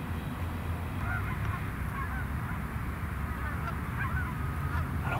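Canada geese honking, many short overlapping calls starting about a second in, over a steady low wind rumble on the microphone.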